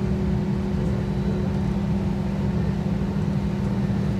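Steady low drone inside an Airbus A320 passenger cabin, the aircraft's running air and power systems humming evenly, with a faint steady tone above it.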